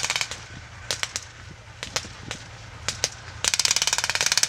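Blank small-arms fire: a rapid machine-gun burst stops just after the start, single rifle shots follow in pairs and threes, and another long, rapid automatic burst begins shortly before the end.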